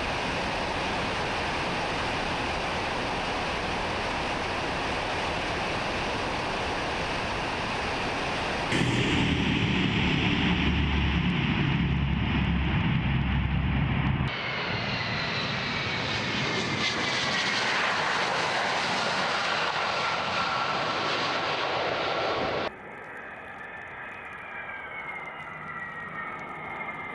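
Tupolev Tu-160 bomber's jet engines heard in a run of separate clips: a steady rushing noise from close by the airframe, then a louder low rumble. After that comes an engine whine falling in pitch as the aircraft moves along the runway, and a quieter falling whine with the bomber on the runway.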